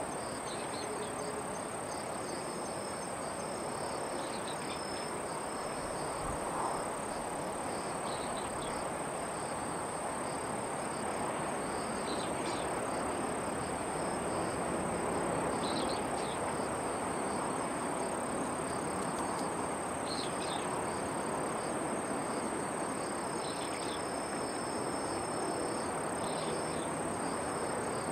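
Insects chirring in one steady high-pitched tone, with short chirps every few seconds, over a steady broad rush of background noise that swells slightly midway.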